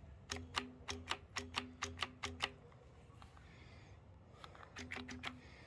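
Rapid faint clicking, about five clicks a second for two seconds, each with a short hum, then a few more clicks near the end: the drill trigger switching the air cannon's 24-volt sprinkler-valve solenoid on and off without a shot.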